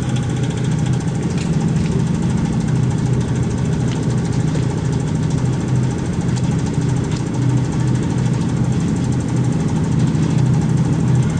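A boat's engine running steadily, a low, even drone.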